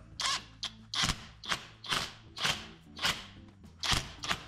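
Thermostat water-outlet bolts being tightened down with a socket tool: a regular series of short, sharp strokes about two a second, over a steady background music bed.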